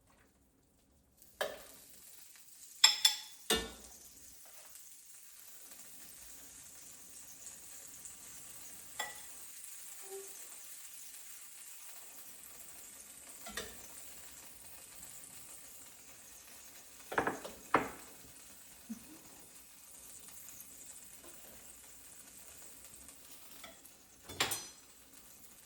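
Soup being ladled from a pot into a glass bowl: scattered clinks and knocks of the ladle against pot and bowl, loudest about three seconds in and again near the end, over a faint steady sizzling hiss from the hot pot.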